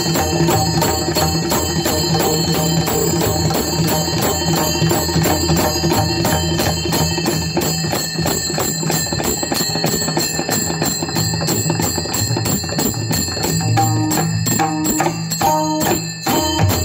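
Pakhawaj and tabla drumming together in a fast, dense rhythm, with a metallic ringing on the beats.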